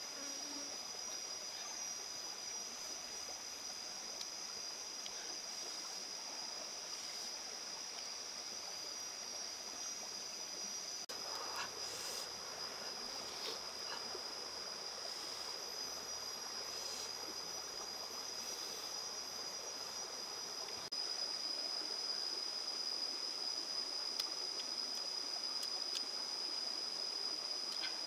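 Steady, high-pitched drone of jungle insects over the rush of a rocky stream, a little louder about three-quarters of the way through.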